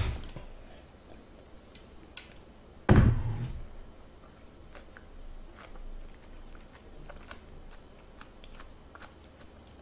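A single loud, dull thump about three seconds in, like something knocking against the table, then faint chewing and small mouth clicks.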